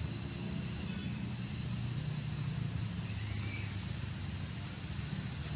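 Steady low mechanical hum over an even background hiss, unchanging throughout.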